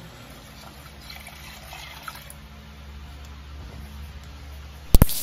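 Chicken stock poured from a bowl into a cooking pot, a soft trickle and splash of liquid, with one sharp knock near the end.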